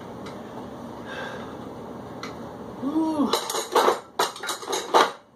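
A short grunt rising and falling in pitch, then metal dumbbells clanking together several times as they are put down at the end of a set.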